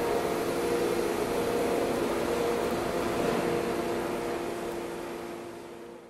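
Factory machinery running with a steady hum of several held tones over a hiss, fading out near the end.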